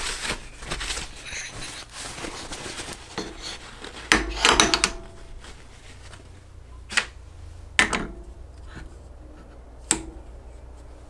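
A cloth rubbing over the steel of a lathe cross slide, then a cluster of clunks about four seconds in and a few single sharp metal knocks as steel tools and a height gauge are set down on the cross slide.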